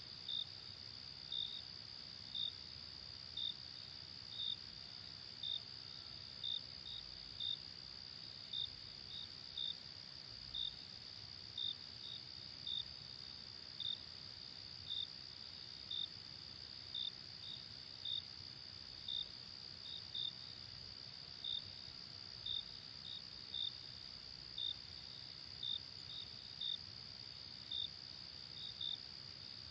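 Crickets chirping at night: a steady high trill under short chirps about once a second, some of them in pairs.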